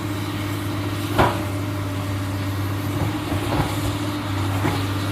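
Hydraulic excavator's diesel engine running steadily, with a sharp knock about a second in and a few fainter knocks later.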